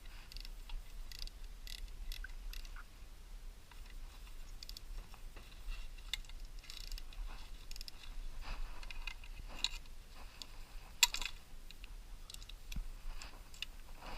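Hand tools and metal engine parts clicking, clinking and scraping as the flywheel and cover of a 5 hp Briggs & Stratton engine are worked off. One sharper metallic knock comes about eleven seconds in.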